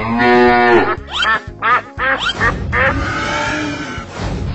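Cartoon duck quacking over background music: one longer held quack, then a quick run of shorter ones.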